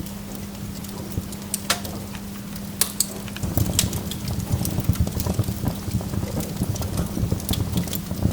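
Burning wood logs crackling and popping, with sharp irregular snaps over a steady low burning sound that grows louder and fuller about three and a half seconds in.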